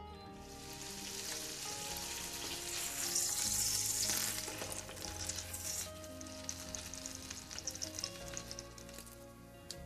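Egg-soaked toast frying in butter in a pan, sizzling with a high hiss. It is loudest about three to four seconds in, as the slice is turned over with tongs, then settles into a lighter crackle.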